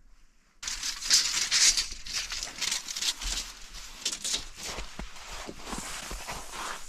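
Close, irregular rustling and scraping with light clicks, starting about half a second in, as a tape measure is handled and run along a wooden foundation beam.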